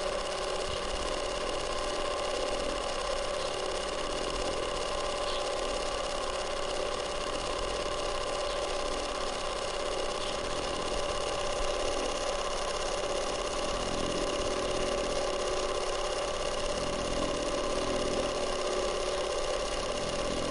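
Small DC electric water pump running with a steady, even whine, pumping water through a clear plastic tube.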